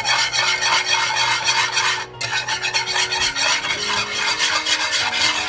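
Wire whisk beating barbecue sauce in a nonstick pan: quick scraping strokes of the wires against the pan bottom, several a second, with a brief pause about two seconds in.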